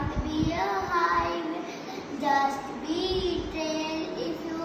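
A young girl reciting a poem aloud in a sing-song, chanted delivery, some words drawn out on held notes.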